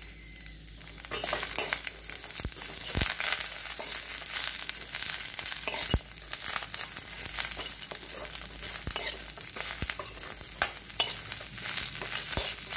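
Coriander, mint and curry leaves sizzling in hot oil in a stainless-steel kadai as they are stirred, with occasional sharp knocks of the steel spoon against the pan. The sizzle comes up about a second in; the leaves are being sautéed until slightly wilted.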